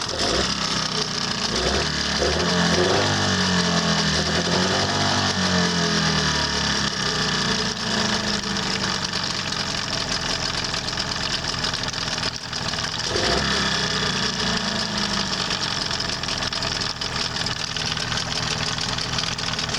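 Tohatsu 18 hp outboard motor running with a knock of unclear cause. The revs rise and fall back twice, about a second in and again about thirteen seconds in.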